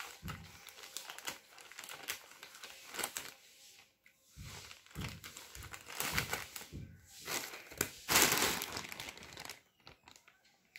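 Plastic courier mailer bag crinkling and rustling as it is cut open with small scissors and handled, in irregular bursts, loudest about eight seconds in.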